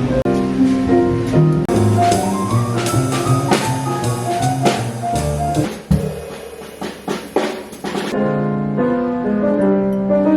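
Background music with piano and a drum kit keeping a steady beat.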